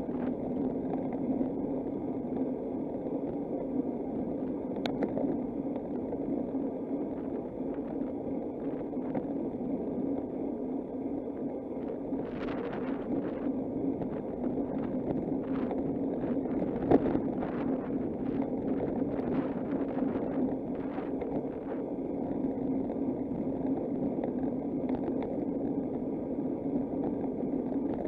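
Steady wind and road rumble picked up while riding a bicycle, with a run of short clicks and ticks in the middle and one sharper knock.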